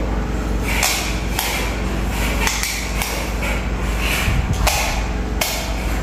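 Sharp knocks at uneven intervals, several in a few seconds, over a steady low hum.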